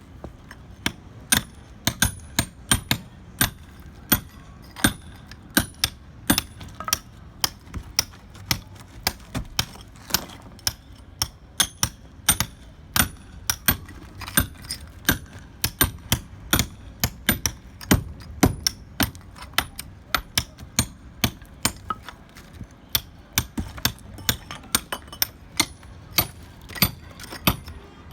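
Hand hammer (maceta) striking the concrete of a cracked ceiling slab, sharp ringing blows about two or three a second with a couple of brief pauses. The concrete is water-damaged and loose, the speaker expecting the whole piece to come away.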